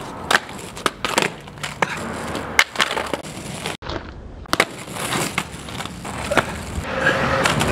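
Small plastic cruiser skateboard flipped and landed on asphalt: repeated sharp clacks of the deck and wheels hitting the street, over the rumble of its wheels rolling.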